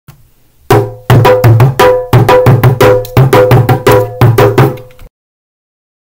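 Short percussive intro jingle: a quick run of drum-like hits over a steady pitched note. It starts just under a second in and cuts off suddenly about five seconds in.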